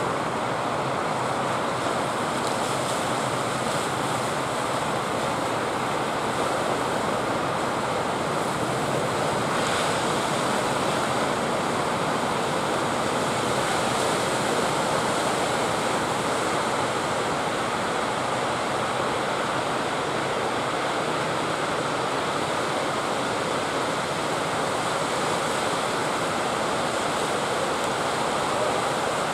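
Ocean surf breaking and washing onto the beach, a steady roar of sea noise.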